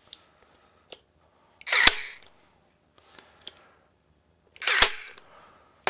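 Parkside cordless staple/nail gun firing twice, two sharp snaps about three seconds apart, with faint clicks of handling in between. It is driving nails into oak side grain and leaving their heads sticking out: too little power to sink them fully in oak.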